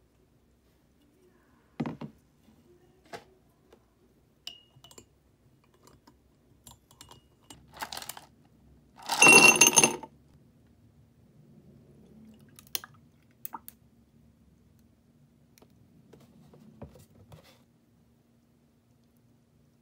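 Ice cubes tumbling into an empty drinking glass about nine seconds in: a loud clatter with bright glassy ringing. A few lighter clinks and knocks of glass and ice come before it.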